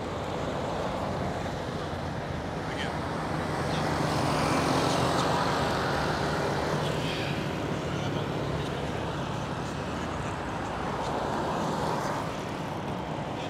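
Road traffic: motor vehicles running past, the engine noise swelling and fading once about a third of the way in and again near the end.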